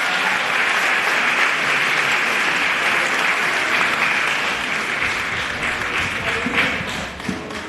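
Audience applauding, a dense steady clapping that thins out and fades near the end.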